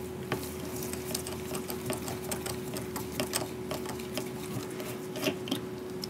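Small Phillips screwdriver backing out a tiny screw on a laptop's M.2 Wi-Fi card: a run of light, irregular clicks and ticks of the driver and screw, with one louder click about five seconds in. A faint steady hum sits underneath.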